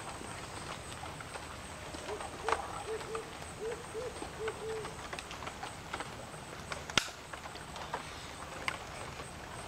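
A run of about eight short hooting calls over some two and a half seconds, among faint scattered clicks and rustles, then one sharp click about seven seconds in.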